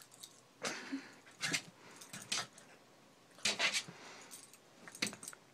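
Small dog leaping and snapping at a laser dot on a wall: a string of short, sharp noisy sounds, roughly one a second.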